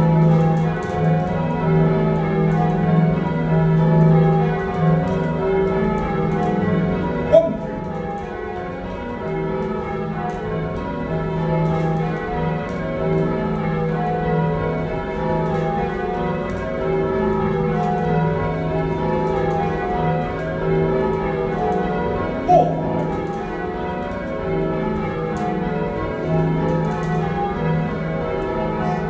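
A heavy ring of six church bells, cast by John Taylor & Co in 1925 with a tenor of 19-3-14 in E flat, being rung full circle on ropes. The strokes overlap in a steady stream of ringing tones. Two brief sharp sounds stand out, about a quarter of the way in and again about three-quarters in.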